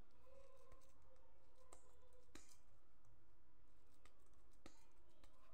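Quiet sound of hands pressing and shaping crumbly ghee-and-jaggery urad flour mixture (adadiya dough) in a pan: a few faint soft clicks over a low steady background.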